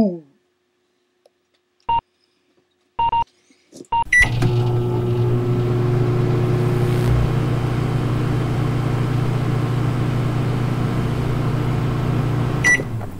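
Microwave oven: a few short keypad beeps, then a click as it starts and a steady running hum for about eight seconds, stopping with a click near the end.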